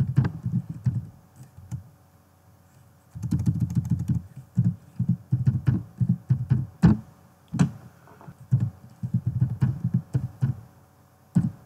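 Keys being typed on a computer keyboard: a short run of quick keystrokes, a pause of about a second and a half, then a longer run of about seven seconds.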